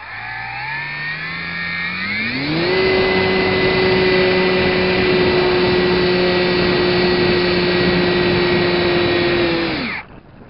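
Motor and propeller of an RC airplane, heard from a camera on the plane: the whine rises in pitch as it throttles up over the first few seconds, then holds steady at high power and cuts off abruptly near the end.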